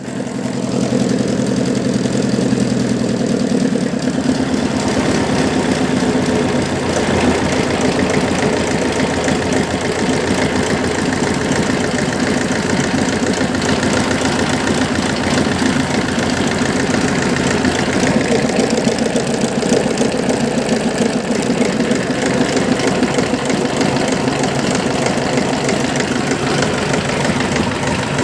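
Two-cylinder 2105A-3A diesel engine running steadily, growing busier about four seconds in and keeping a steady run after that.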